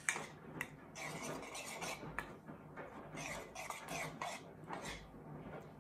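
A small metal measuring spoon stirring a flax egg of flaxseed and hot water in a bowl, scraping and clinking against the bowl in repeated irregular strokes.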